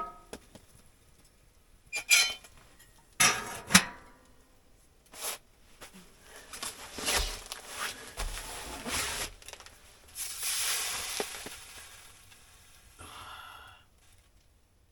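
A few sharp metallic clanks with a short ring, about two and three to four seconds in, followed by several seconds of rustling and scraping as things are handled.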